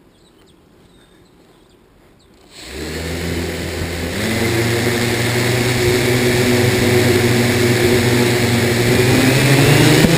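A multirotor drone's electric motors and propellers start up about two and a half seconds in and run with a steady whine, louder from about four seconds in and rising in pitch near the end as it spins up to lift off.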